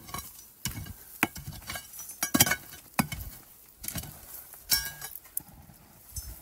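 Sharp, irregular clinks and knocks of loose stones being handled and struck against rock at a blocked opening, about half a dozen, the loudest about two and a half seconds in.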